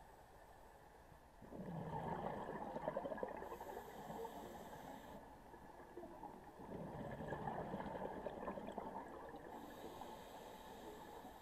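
Scuba diver breathing through a regulator underwater: two breaths, each a rush of exhaled bubbles followed by the hiss of inhaling through the regulator.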